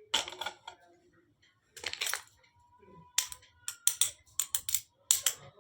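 Miniature steel toy kitchenware clinking and tapping as small pieces are handled: a cluster of knocks about two seconds in, then a quick series of sharp metallic clicks in the second half.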